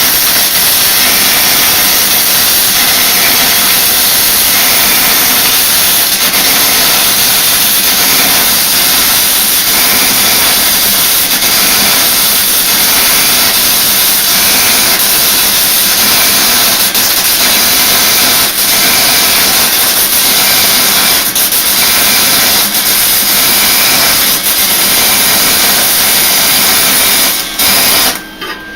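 Lincoln Electric wire-feed (MIG) welder arc crackling and hissing through one long continuous bead, cutting off abruptly near the end. The arc runs jumpy, which the welder puts down to no shielding gas reaching the weld.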